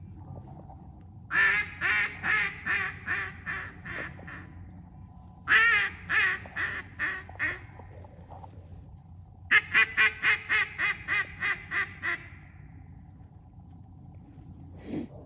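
Mallard-type quacking in three descending series: each run of about seven to ten evenly spaced quacks starts loud and fades over two to three seconds. A single short quack comes near the end.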